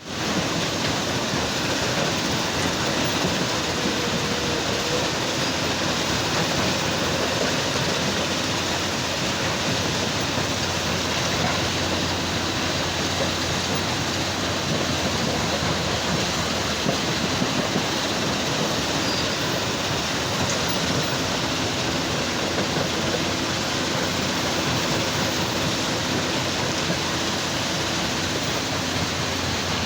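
Heavy machinery running steadily at a rock-crushing site: an excavator working beside a stone crusher, one continuous loud noise.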